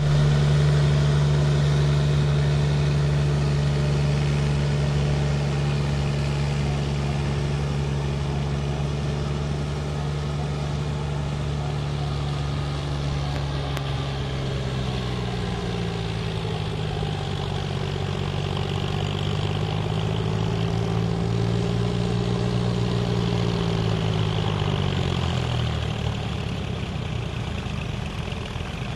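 John Deere tractor's diesel engine running as it pulls through deep mud, puddling a flooded paddy field on cage wheels. The note holds steady at first, then rises and falls from about halfway and drops away near the end.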